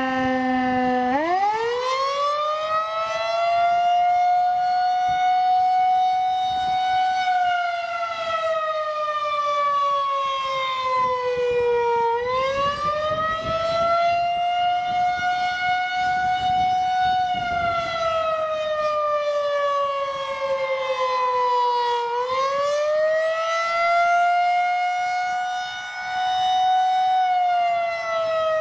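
Federal Signal 2001-130 outdoor warning siren sounding the Attack signal. It is a wail whose pitch climbs, holds, then sinks, repeating about every ten seconds. About a second in, a lower steady tone underneath stops and the pitch starts its first climb.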